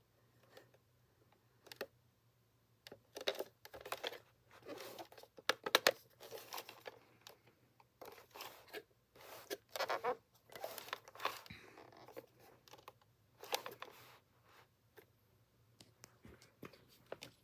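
Irregular rustling, crinkling and clicking, like objects being handled, in short clusters over a faint steady low hum.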